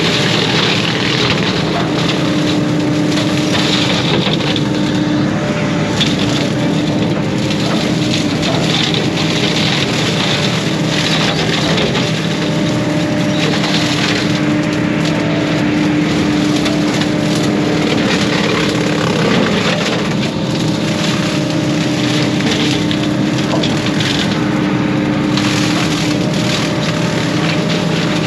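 Case 140 excavator running steadily under load with a brush-cutter attachment, with crackling and splintering of brush and wood being cut.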